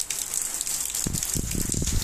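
Heavy rain falling in a steady hiss, pattering on roofs and surfaces. About a second in, a low rumble joins it.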